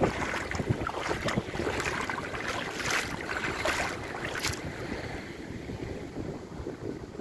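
Small waves lapping and splashing in shallow lagoon water, with wind buffeting the microphone; the splashes ease off after about four and a half seconds, leaving wind and gentle water noise.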